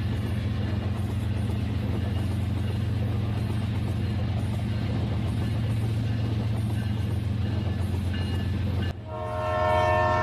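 Battery-powered toy trains running on plastic track, a steady electric motor hum. About nine seconds in it gives way to a toy train's electronic horn sound, several held tones at once.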